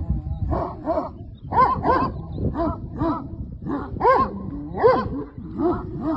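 Kangal shepherd dog barking repeatedly, about eleven short barks, many in quick pairs, with a low rumble underneath.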